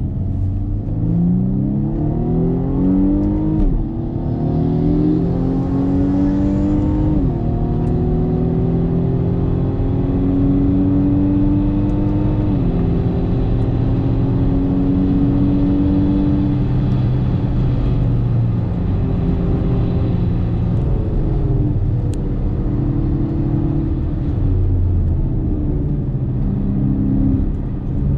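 BMW M135i F40's turbocharged 2.0-litre four-cylinder engine heard from inside the cabin, accelerating with its pitch climbing and dropping sharply at three upshifts in the first dozen seconds. It then runs at speed under tyre and road noise, easing off and picking up again near the end.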